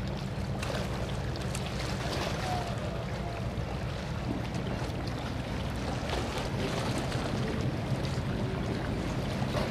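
A boat's engine running steadily with a low hum, under a wash of wind and water noise.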